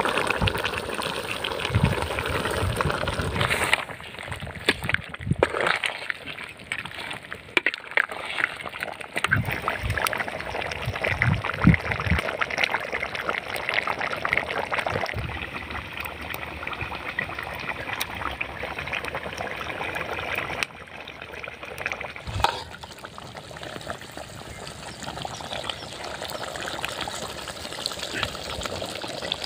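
Pork curry gravy bubbling and gurgling as it simmers in a pot, with a ladle stirring through it. The sound changes abruptly a few times.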